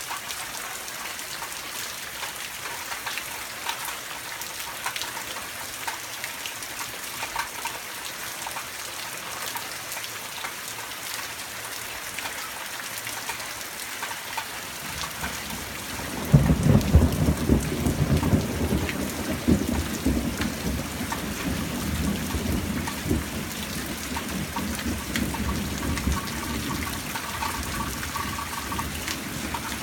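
Steady rain falling throughout. About halfway through, thunder builds to a loud crack-and-rumble, then rolls on for about ten seconds, slowly fading.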